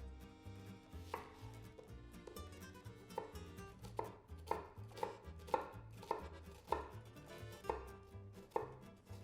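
Kitchen knife chopping food on a cutting board: about ten separate strokes, closer together in the middle, with soft background music underneath.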